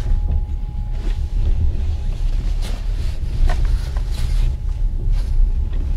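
Steady low rumble inside a passenger train sleeper carriage, with bedding rustling and a few light knocks as a berth is made up with sheets.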